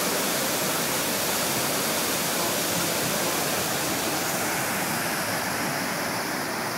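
The 9/11 Memorial waterfalls pouring steadily, a continuous rushing of water falling into the reflecting pool. The sound gets slightly duller about two-thirds of the way through.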